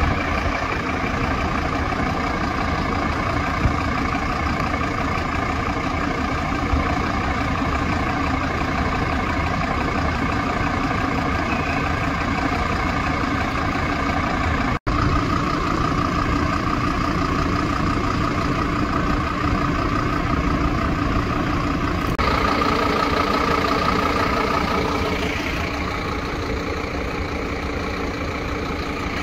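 Scania P-series fire truck's diesel engine idling steadily, with a steady low hum and a higher whine held over it; the tone shifts slightly about three-quarters of the way through.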